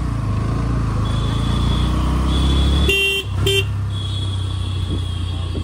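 Bajaj Pulsar NS125's single-cylinder engine running steadily under way in traffic. About three seconds in, a horn sounds two short honks.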